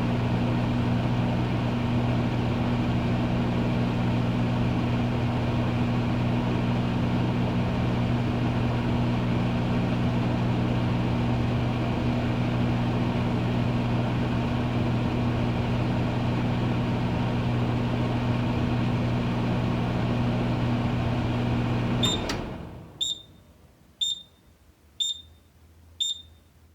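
Microwave oven running with a steady hum and fan noise, which stops about 22 seconds in. It is followed by a series of short, high beeps about a second apart, the signal that the heating cycle is done.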